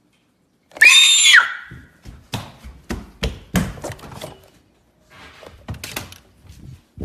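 A loud, high-pitched scream of the shark-puppet voice about a second in, dropping in pitch as it ends, followed by a quick run of knocks and thumps and softer handling thuds.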